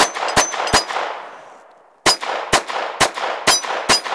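Ruger LCP II .22 LR pocket pistol being fired: three quick shots, then after about a second's pause five more at about two a second, each crack followed by a short metallic ring and a fading echo.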